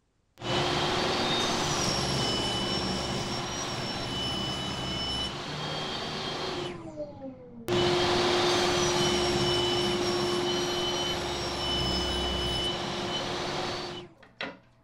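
Table saw running and ripping thin strips off a white acrylic board, in two runs. After the first run the blade winds down with a falling pitch.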